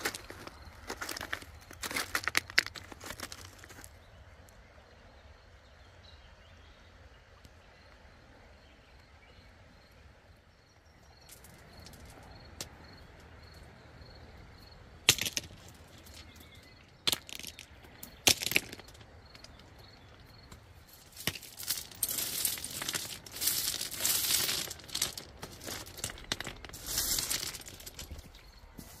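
Rounded river stones clacking and pebbles crunching as they are handled on a stony beach, with a few isolated sharp clacks midway. Near the end comes a dense crinkling rustle as a foam sleeping mat is unrolled over the pebbles.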